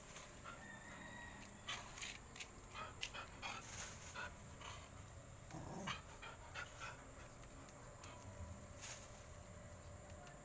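Faint, irregular crinkling of a plastic bag and snapping as bilimbi (kamias) fruits are pulled off the tree by hand.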